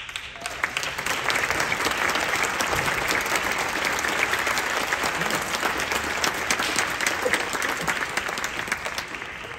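Audience applause, starting suddenly as a band's final chord dies away and holding steady, thinning out near the end.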